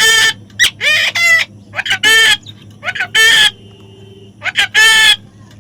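A parrot squawking: loud, harsh calls of about half a second, repeated roughly once a second, each often led by a short, sharp note.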